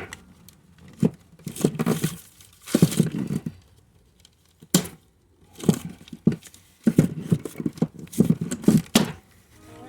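An aluminum rivet being set by hand in a car door's vent window frame: a string of irregular clicks and short scraping noises from the riveting tool and the metal frame.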